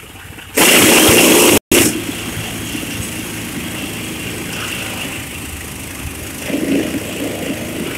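An engine running steadily at the well site, with a loud rushing noise that starts about half a second in and lasts about a second before cutting off abruptly.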